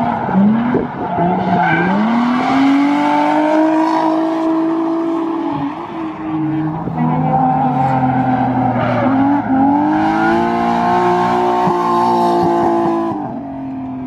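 Car engine revved hard and held at high revs while the car drifts, with tyre noise from the slide. It makes two long pulls: the revs drop briefly about six seconds in, climb and hold again, then fall off near the end.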